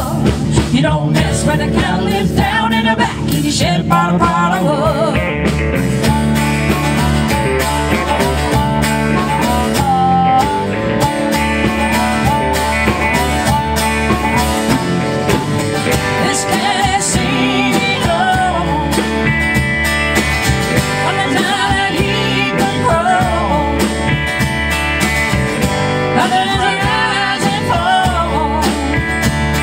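Live country-blues band playing: electric guitar, strummed acoustic guitar, electric bass and drums, with a harmonica.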